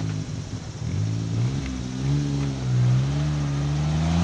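Engine of a small off-road 4x4 working under load as it climbs a steep dirt slope. The revs rise and dip several times and hold higher near the end.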